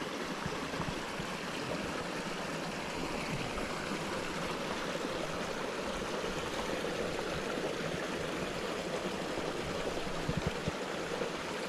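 Small brook trout stream babbling steadily over rocks and a small drop between old concrete blocks. A few soft low thumps come about ten seconds in.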